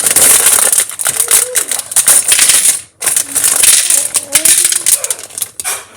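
Small plastic Lego pieces clattering and rattling onto a metal cookie tray as they are poured out and sorted into piles, with a brief pause about halfway through.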